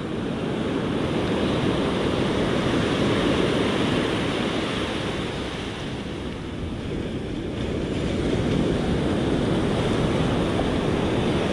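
Surf breaking and washing up on a sandy beach: a steady rush of waves that eases off around six seconds in and builds again.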